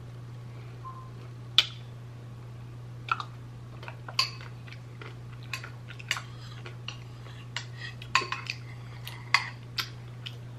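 A metal spoon clinking and scraping against a bowl as ice cream is scooped: a string of sharp, irregular clicks, the loudest about a second and a half in and near the end.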